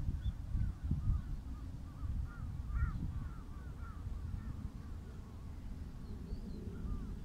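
Birds calling in a run of short rising-and-falling notes through the first few seconds, with another call or two near the end, over a steady low rumble of wind on the microphone.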